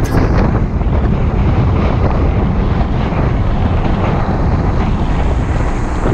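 Wind buffeting the microphone on a moving electric scooter, a loud steady rumble with tyre and road noise underneath.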